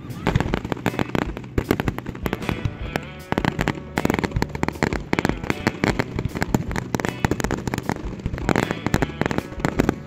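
Consumer fireworks going off in rapid succession, a dense run of sharp bangs, pops and crackles with no let-up.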